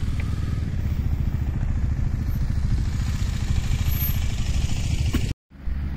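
Motorcycle engine idling steadily, a low even rumble. The sound cuts out completely for a moment near the end.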